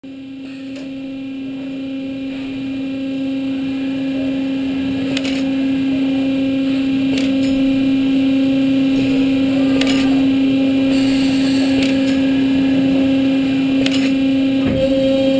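Gundrilling machine with automated part loading running: a steady mechanical hum with a few sharp metallic clicks from the loader. It fades in over the first several seconds.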